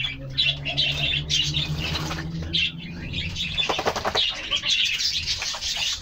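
Domestic pigeons bathing in tubs of water, beating their wings and splashing in repeated bursts.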